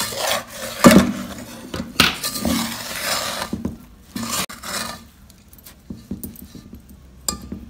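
Metal spoon stirring and scraping through a crumbly semolina and coconut mixture in a metal pot, with knocks against the pot, the loudest about a second in. The stirring noise thins out in the second half.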